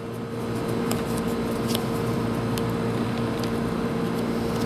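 Steady appliance hum with two constant tones, with a few faint light clicks from small parts being handled.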